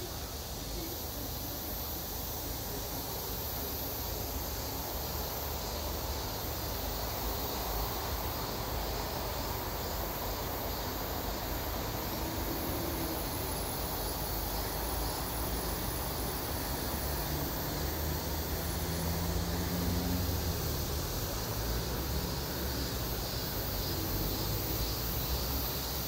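Cicada buzzing in a continuous high-pitched drone, over a steady low rumble.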